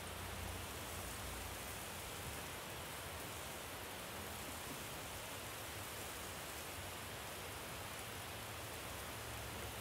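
Meat skewers sizzling on a barbecue grill: a steady hiss with faint crackles and a low rumble underneath.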